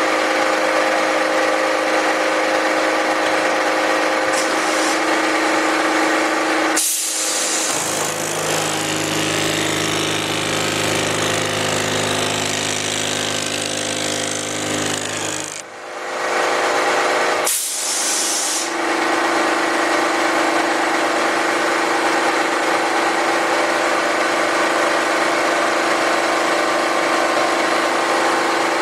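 Pullmax reciprocating sheet-metal machine running, its upper joggling die stroking rapidly as a strip of 14-gauge cold-rolled steel is fed through to press in an offset. About 7 seconds in, the sound shifts to a lower-pitched running for about eight seconds, then returns to the higher steady tone.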